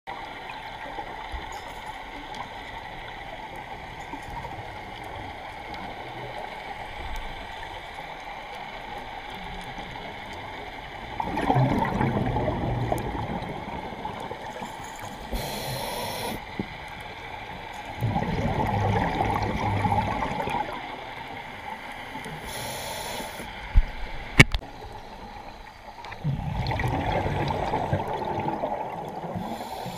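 Scuba diver's regulator breathing heard underwater: three bubbling exhalations of about three seconds each, roughly seven seconds apart, with a short hiss of inhalation between them. Two sharp clicks come just before the third exhalation.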